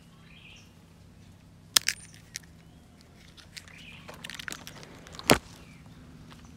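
Tamarind pods being picked by hand from the tree: a few sharp snaps around two seconds in and a louder one a little after five seconds in, with leaves and twigs rustling between them.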